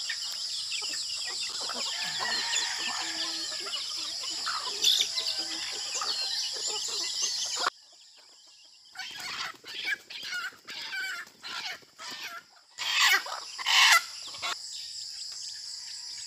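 Native chickens clucking and calling over a steady high insect drone; just past the middle the sound cuts off abruptly, then a string of about eight short, louder calls follows, the loudest two near the end.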